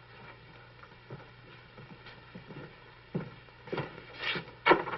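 Footsteps on wooden stairs and floorboards: faint scuffs at first, then several heavier steps starting about three seconds in.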